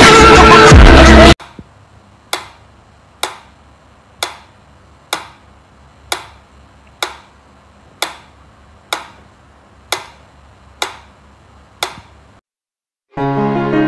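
Mechanical pendulum metronome ticking steadily, about one sharp tick a second, eleven ticks in all. Background music plays for the first second or so, cuts off abruptly, and comes back near the end.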